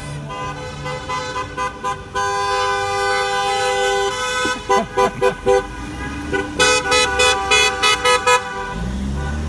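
Car horns honking from passing cars: several horns held together for about four seconds, then a run of about four short toots and a faster run of about seven. A low rumble comes in near the end.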